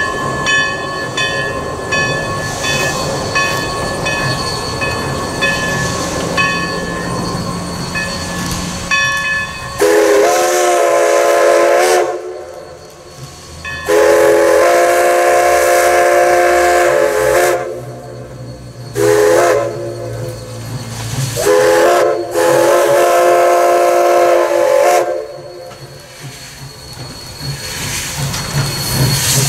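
A grade-crossing signal bell rings in quick, even strokes. Then the steam whistle of Everett Railroad No. 11, an ALCO 2-6-0 Mogul steam locomotive, sounds the long-long-short-long grade-crossing signal as the locomotive approaches the crossing.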